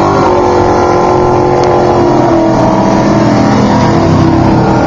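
Off-road race truck engines running loud and revving, with several engine tones overlapping.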